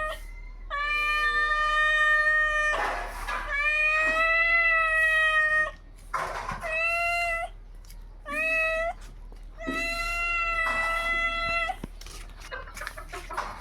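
Two cats caterwauling in a standoff: long, drawn-out yowls held for one to two seconds at a time, rising and falling slightly in pitch, with short noisy hiss-like bursts between them.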